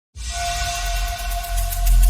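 Electronic intro music starting: a rising hiss over a held tone, with a heavy bass coming in near the end.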